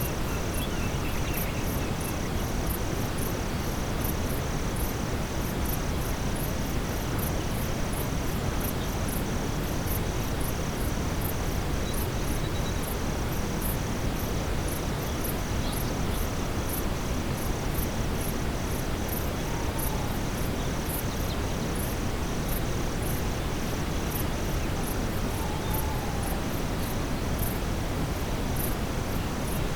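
Steady brown noise mixed with a night-time forest ambience: insects, crickets among them, chirping in a steady, even pulse, with faster high-pitched chirping above it.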